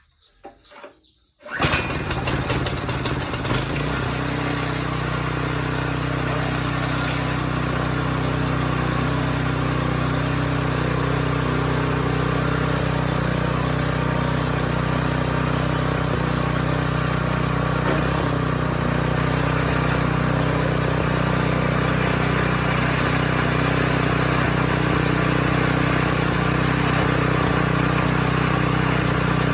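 Harbor Freight Predator small engine, choked and pull-started, catching about a second and a half in and then running steadily at a constant speed.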